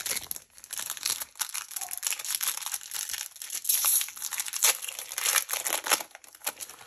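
A Magic: The Gathering booster pack's plastic-foil wrapper crinkling and tearing as it is opened, a dense run of irregular crackles.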